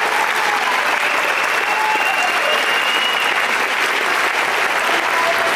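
Auditorium audience applauding steadily.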